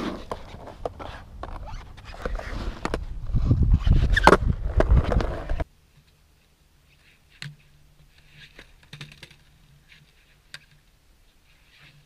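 Skateboard wheels rolling and scraping on concrete, with sharp knocks and clacks of the board as the rider tries walk-the-dog pivots. About six seconds in the sound drops away to faint, scattered clicks over a low hum.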